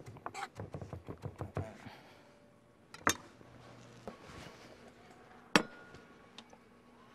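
Chef's knife chopping shallots on a plastic cutting board, a quick run of strokes over the first second and a half or so. Then two sharp knocks, about three seconds in and again, louder, about five and a half seconds in.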